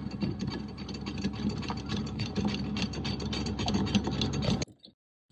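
Sailboat anchor windlass hauling in chain: a steady mechanical whir with rapid, irregular clicking of chain links over the gypsy. It cuts off suddenly near the end.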